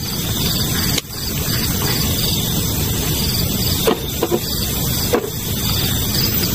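Night insects chirping in an even pulse, about two to three chirps a second, over a steady hiss. A few short knocks about four and five seconds in, as a drink can is handled and set down on a metal camp table.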